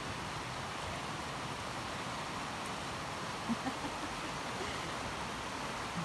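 Shallow river flowing over a stony bed, a steady, even rush of water.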